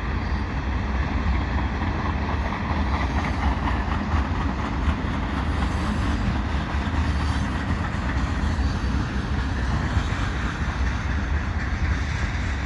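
Freight cars of a train rolling past, a steady rumble of steel wheels on the rails.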